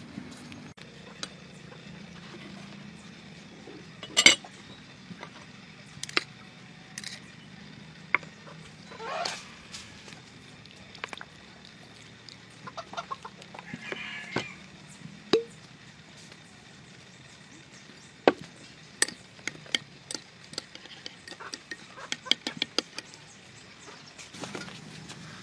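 Sharp clicks and clinks of a metal spoon against a small glass bowl while a sauce is stirred, coming thick and fast over the last several seconds. Chickens cluck in the background.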